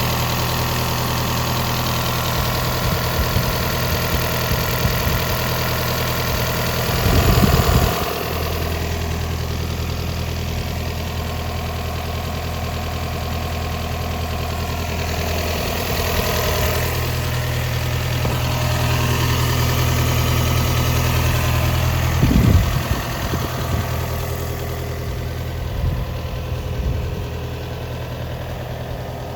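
Komatsu PC45MR-5 mini excavator's diesel engine running steadily as the machine is put through its operation check, its note shifting slightly twice. A brief louder clatter comes about seven seconds in and another about twenty-two seconds in.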